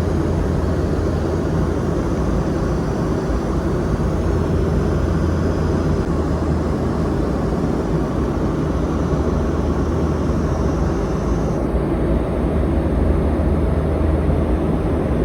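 Steady in-flight cabin noise of a Boeing 717-200: the drone of its rear-mounted Rolls-Royce BR715 turbofans and rushing air, with a low hum underneath, heard from a seat inside the cabin.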